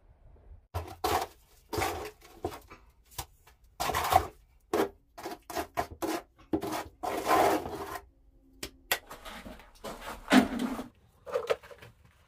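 Irregular, gritty scrapes of a trowel working a stiff mortar of small stones and red clay.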